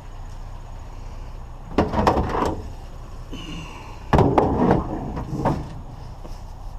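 Sheet-metal range hood being handled as scrap: two bouts of clanking and banging, about two seconds in and about four seconds in, the second opening with the hardest bang, with a short squeak between them, over a steady low rumble.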